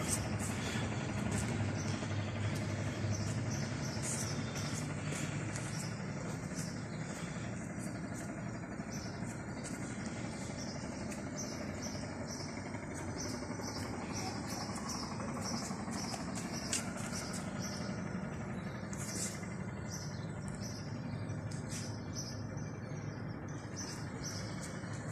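Outdoor background ambience: a steady low rumble, like distant traffic, with small birds chirping over it in short, repeated high notes.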